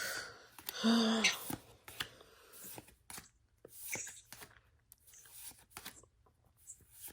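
Pokémon trading cards being handled and flipped through: soft rustling and many short clicks of card against card, with a brief voice sound about a second in.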